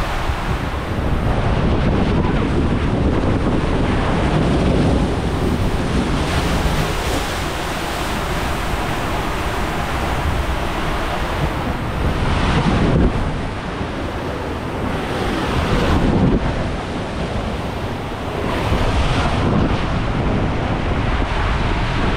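Water rushing and splashing along a water slide, with heavy wind buffeting on a rider-carried camera's microphone; the noise swells and eases several times as the rider slides down.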